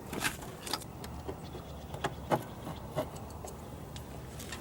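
A few scattered light clicks and taps as a hand tool works at the retaining clip of a 2000 Kia Sephia's door handle inside the door, over a low steady hum.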